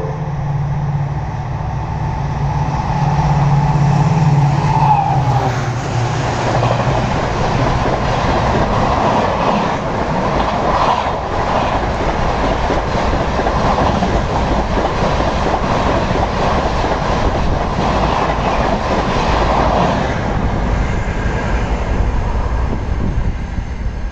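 EMD WDP-4B diesel locomotive passing at high speed, about 130 km/h: its engine hum drops in pitch as it goes by about five seconds in. Then its passenger coaches rush past with a rapid clatter of wheels over the rail joints, fading near the end.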